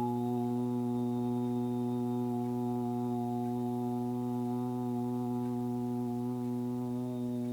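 A man's low vocal drone held on one steady pitch with many overtones: the 'earth sound' toned in a sound-healing meditation.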